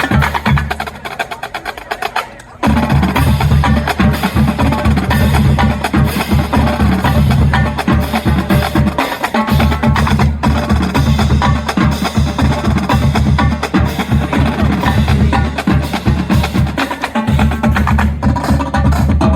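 Marching drumline playing a cadence: rapid snare and rim clicks over bass drum hits. The playing thins out briefly about two seconds in, then comes back at full volume.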